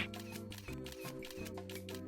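Quiet background music: sustained low chords with a light ticking beat of about four ticks a second.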